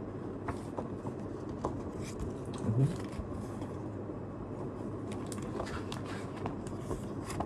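Paper merchandise being handled: light rustling and small scattered taps as the pages of a small photo book are turned, with a short low sound about three seconds in.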